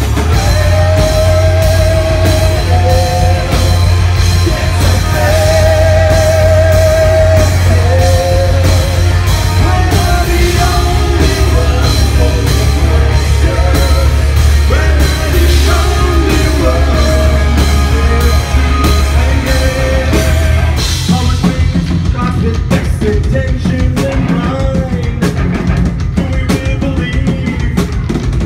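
Rock band playing loudly, with drums, guitars and a sung lead vocal. About two-thirds of the way through, the heavy bass drops out and the music thins, with the drums still hitting.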